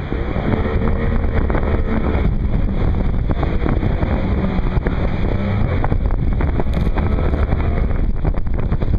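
Brown Betty rapid on the Colorado River in Cataract Canyon, its high-water whitewater rushing loudly and steadily around a raft running through it, with wind buffeting the microphone.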